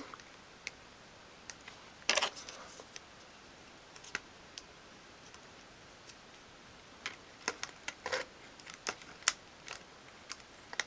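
Small black plastic spring clamps clicking and knocking against one another as they are squeezed open and fitted onto a miniature wooden table. There is one louder click about two seconds in and a run of clicks later on.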